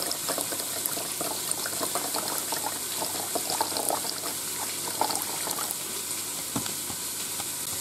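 Apple cider vinegar poured in a stream from a bottle into a glass measuring cup of water, splashing as it fills; the pour stops near the end. Under it, a steady crackling sizzle from beef short ribs searing in the pot of a Ninja Foodi on sear mode.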